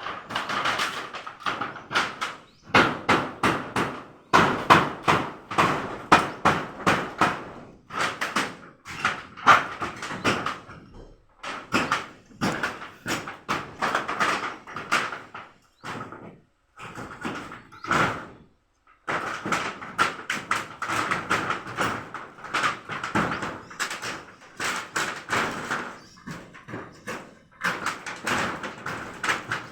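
Hand tools working on wood during house carpentry: rapid, repeated sharp strokes, several a second, in runs of a few seconds broken by short pauses.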